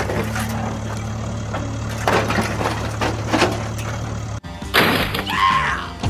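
Steady low hum with intermittent plastic clattering and scraping as a toy excavator lifts a toy wheel loader. The hum cuts off abruptly about four and a half seconds in, followed by louder scraping and a brief squeak.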